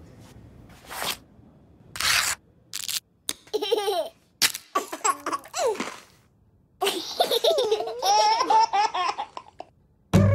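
A baby laughing: a couple of breathy gasps, then short bursts of high-pitched giggling that build into one long, unbroken laugh about seven seconds in.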